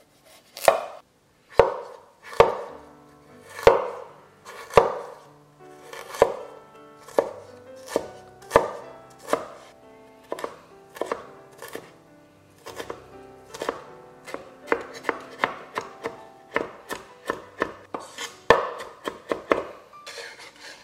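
A cleaver cutting fresh ginger on a wooden cutting board: separate slicing strokes about a second apart at first, then quicker chopping, two or three strokes a second, as the ginger is minced.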